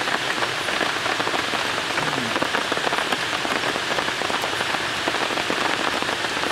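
Steady rain pattering: a dense, even hiss of countless small drop ticks.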